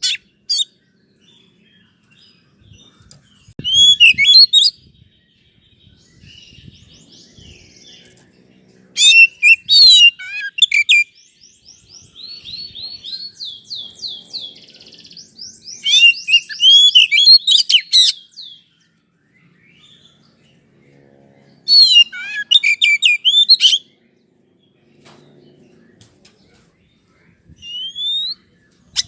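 Oriental magpie-robin (kacer) singing: loud phrases of varied whistled and chattering notes that sweep up and down, separated by pauses of a few seconds, with a softer run of repeated notes in the middle.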